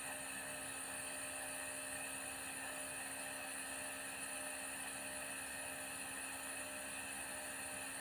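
Compressor of a jet nebulizer running, a steady, even hum with hiss.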